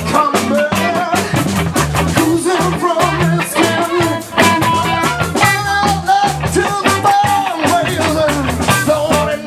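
Live band playing an upbeat ska-style number: drum kit, electric bass and electric guitar, with horns holding long notes over the beat.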